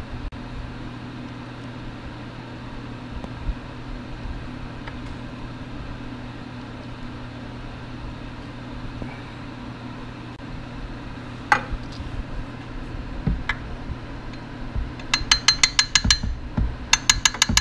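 Ratchet wrench clicking in short quick bursts of evenly spaced clicks over a steady low hum, after a couple of single metal clicks.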